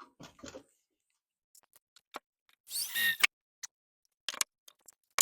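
Scattered light clicks and taps, and a short squeaking scrape about three seconds in.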